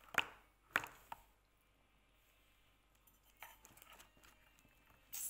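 A few short wet mouth clicks and lip smacks from sucking on a candy, three in the first second or so, then mostly quiet with a faint one about three and a half seconds in.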